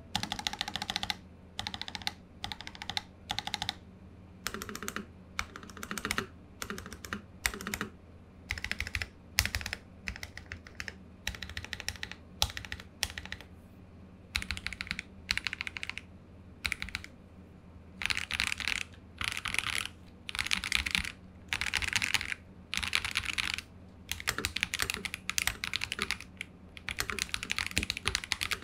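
Typing on a Keydous NJ80 mechanical keyboard with stock Akko Radiant Red linear switches in an aluminium plate with plate foam: runs of quick keystrokes, each about a second long, with short pauses between them.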